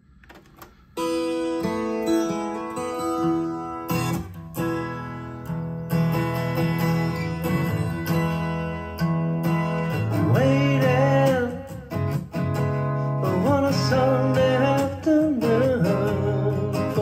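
Acoustic rock music with guitar, played back from a Type II cassette on an Aiwa AD-F990 tape deck. It starts about a second in, and a singing voice comes in about ten seconds in.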